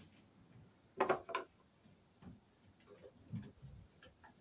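Light clicks and taps of a screwdriver and metal parts at a steel electrical panel enclosure. There are two sharper clicks about a second in, then a few fainter taps.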